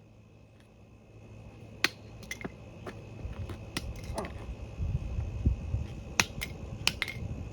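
A hammer striking a plastic air horn: about ten sharp, irregular knocks, the loudest about two seconds in, over a low rumbling noise that builds from about three seconds in.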